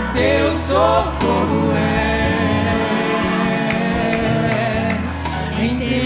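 Live Portuguese-language gospel worship song: a woman's lead voice sings a gliding phrase at the start over the accompaniment. The music then holds steady chords, and the singing comes back near the end.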